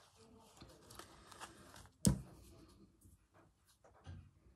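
Faint rustling of a small fabric needle book being handled and opened as a needle is taken out, with one sharp tap about two seconds in and a soft thump near the end.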